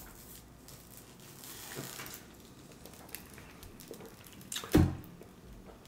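Quiet drinking from a plastic drink bottle: faint swallows and small plastic clicks, then one short thump near the end.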